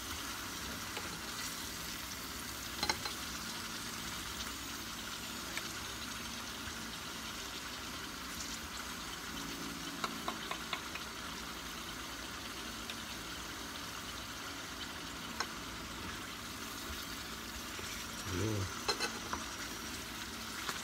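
Sweet potato slices sizzling steadily in hot oil in a frying pan, with a few light clicks of a fork and wooden spatula against the pan as the slices are turned.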